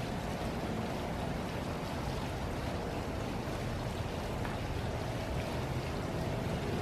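Steady splashing of a tiered outdoor water fountain, with a low rumble underneath.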